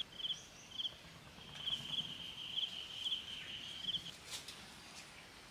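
Faint, high-pitched insect chirping. It starts as a few short chirps, then runs as a steady pulsing trill from about a second and a half in until about four seconds in. A light click comes near the end.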